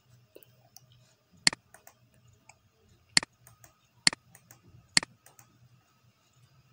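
Computer mouse clicking: four sharp single clicks, the last three about a second apart, over a faint low hum.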